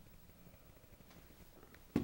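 Near silence: quiet room tone, broken by a single sharp knock at the very end.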